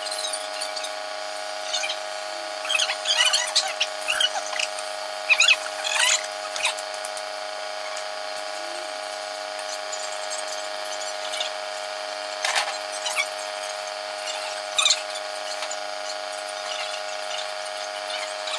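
Small metal and plastic printhead parts being handled and fitted by hand: bunches of sharp clicks and scrapes about three to six seconds in, and single ones near the middle and later, over a steady background hum.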